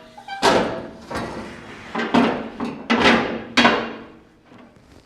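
Delta Unifence rip fence clanking about five times as it is handled and set down on a shelf, metal knocking with a short ring after each strike.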